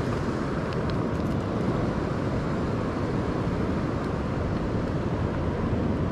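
Steady wind rushing and rumbling on the microphone, mixed with the wash of surf, with a couple of faint ticks about a second in.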